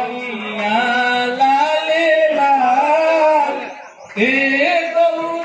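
A man singing a folk song unaccompanied, in long wavering notes, with a short break for breath about four seconds in.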